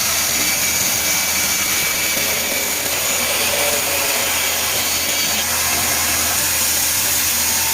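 An electric motor-driven workshop tool running steadily, a constant whirring hiss with no pauses.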